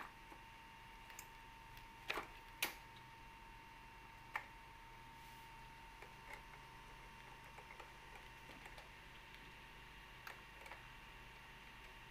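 Handling noise from fitting a toddler tricycle's handlebar stem into its frame: a few sharp plastic clicks and knocks, three louder ones in the first half and fainter ticks later, over a faint steady hum.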